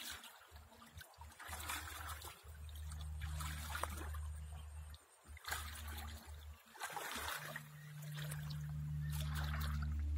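Water splashing and trickling as a wet cast net is drawn up by hand through shallow water, in about six separate swishes, over a low steady rumble.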